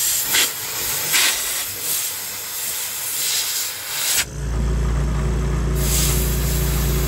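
Compressed-air blow gun hissing in bursts as it blows a string through electrical conduit. About four seconds in, a motor starts suddenly and runs with a steady low hum, with the air hiss still going over it.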